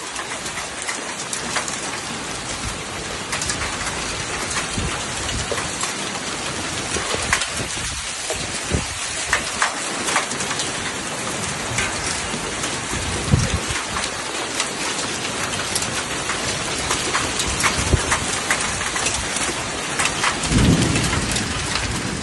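Heavy rain pouring down with hail, hailstones striking hard surfaces as many sharp clicks in the steady downpour.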